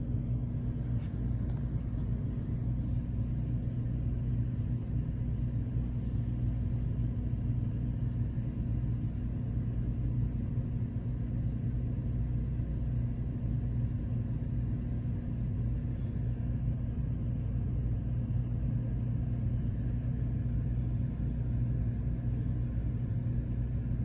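13.5K BTU Dometic rooftop air conditioner running: a steady low hum of its compressor and fan.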